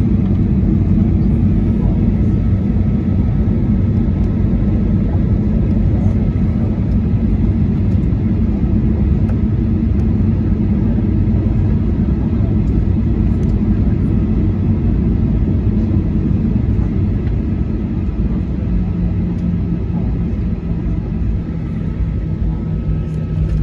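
Steady low rumble inside the cabin of a Boeing 737-800 taxiing on its CFM56-7B engines. A steady low hum joins in about three-quarters of the way through.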